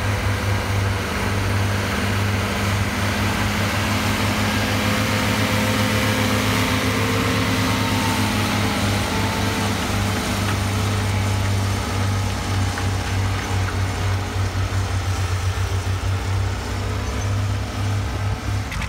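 Farm tractor engine running steadily under load with a deep, rapid throb as it pulls a multi-bottom moldboard plow.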